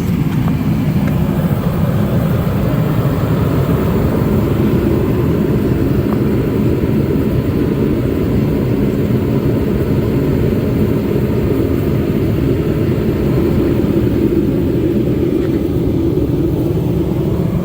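A vehicle engine running steadily at idle, a constant low drone.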